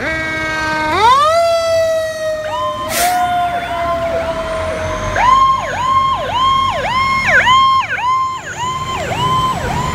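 Fire apparatus sirens: one siren winds up sharply about a second in and then slowly sinks in pitch, while a second siren cycles rapidly up and down, about two times a second, from about two and a half seconds on. A brief sharp hiss cuts through about three seconds in.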